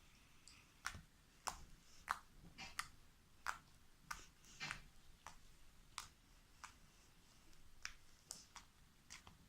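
Slime being squeezed and worked by hand, giving faint, sharp clicking pops at an irregular pace of about one or two a second.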